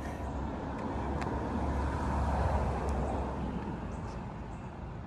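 A road vehicle passing by: a noisy rush with a low rumble that builds to a peak about halfway through and then fades away.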